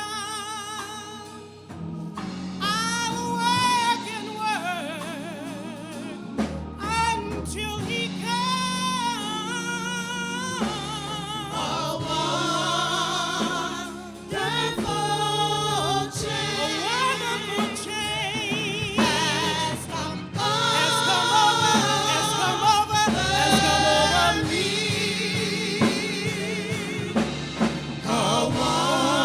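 Gospel singing with wide vibrato over a steady instrumental backing of sustained low notes.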